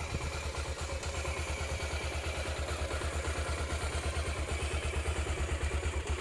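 Honda XR250 Tornado's air-cooled single-cylinder four-stroke engine idling steadily, with an even, rapid pulse from its exhaust.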